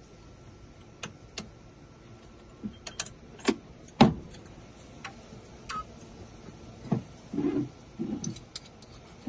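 Scattered sharp metal clicks and knocks from keys and a key-cutting machine being handled while a key is set up for copying, with one louder clack about four seconds in. Two short low buzzes follow near the end.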